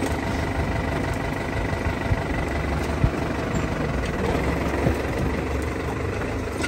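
Tractor engine idling steadily, with a single sharp knock about three seconds in.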